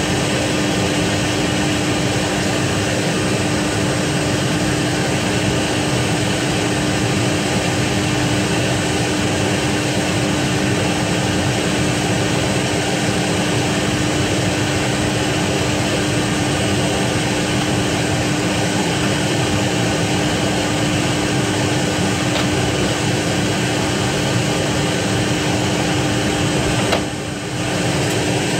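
Fokker 100 jet airliner parked with a turbine running: a loud, steady rush with a constant hum-tone, dipping briefly near the end.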